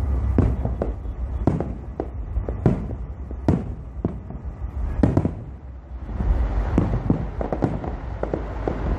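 Fireworks exploding: a rapid, irregular series of sharp bangs over a steady low rumble, the rumble growing louder about six seconds in.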